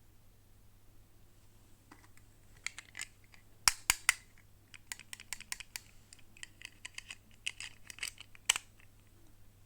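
Toy packaging being handled and opened by hand: a run of small plastic clicks and crackles, with a few sharp snaps around four seconds in and one more near the end.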